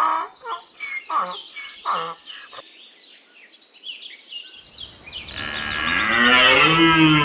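Donkey braying: a run of short, squeaky pitched calls, a lull about three seconds in, then a long, loud bray that builds over the last two seconds.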